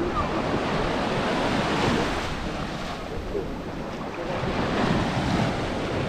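Small waves washing up the sand and draining back at the shoreline, surging about two seconds in and again near the end, with wind buffeting the microphone.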